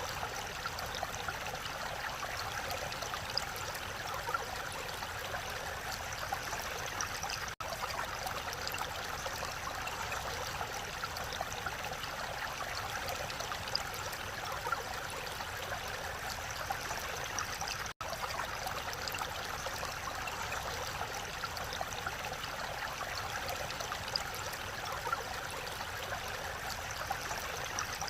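Mountain valley stream flowing steadily. The sound cuts out for an instant twice, about a third and two-thirds of the way through.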